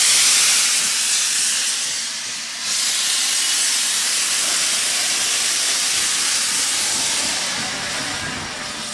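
Steam hissing loudly from the open cylinder drain cocks of GWR King class 4-6-0 No. 6023 King Edward II as it starts away. The hiss dips briefly about two and a half seconds in, then comes back.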